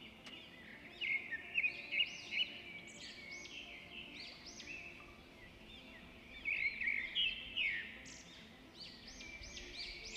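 A flock of caged lovebirds chirping and chattering with many quick, shrill, overlapping calls. Louder clusters of calls come about a second in and again around seven seconds.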